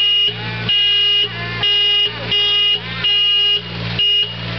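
A vehicle horn honking in about six short blasts in quick succession, over the steady running of an Ingersoll Rand tandem road roller's engine.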